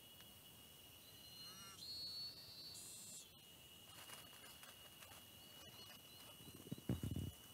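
Insects buzzing steadily in one high thin tone, with a few short bird-like chirps over it. Near the end comes a brief burst of low thumps and rustling, the loudest sound.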